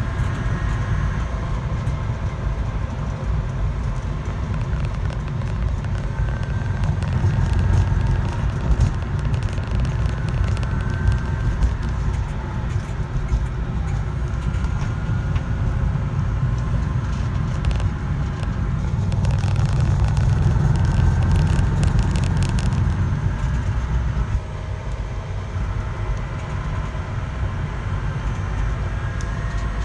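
A vehicle running with a steady low rumble and a faint wavering whine above it, with a patch of light ticking about two-thirds of the way through; the recording is made to capture an abnormal noise.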